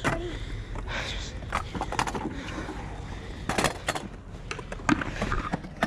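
Kick scooter rolling over skate park concrete: a steady low wheel rumble broken by several sharp knocks and clatters, with jacket fabric rubbing against the chest-mounted camera.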